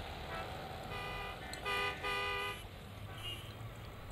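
Street traffic background with vehicle horns tooting: a few faint horns, then two clearer toots, a short one just under two seconds in and a longer one right after.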